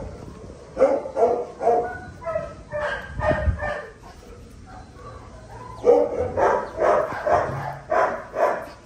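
Pit bull puppies play-fighting, giving short barks and yips in quick runs, with a quieter gap about halfway through.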